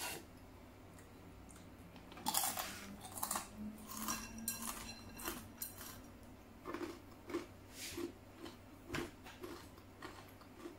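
Close-up eating sounds from a bowl of noodle soup: slurping and sipping at a porcelain bowl's rim, with chopsticks clinking against the bowl, then steady chewing about twice a second.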